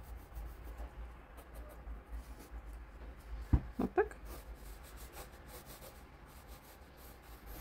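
Faint scratching of a graphite pencil drawing lines on paper, over a low steady hum. About three and a half seconds in comes a brief louder vocal sound, the loudest thing in the stretch.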